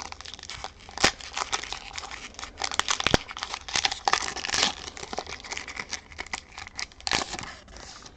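A foil Pokémon booster pack wrapper crinkling and crackling as it is handled and torn open, with a few sharp crackles.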